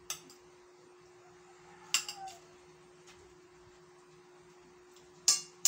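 Metal spoon clinking and scraping against a ceramic plate of rice: a few separate sharp clinks, the loudest pair near the end, over a faint steady hum.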